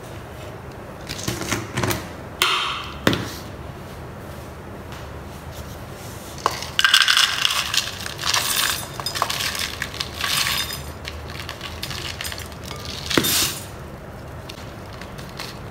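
Dry rolled oats scooped from a plastic jar with a small cup and poured into a glass mixing bowl, several pours of rattling, hissing flakes with a few sharp clinks of the cup against the glass.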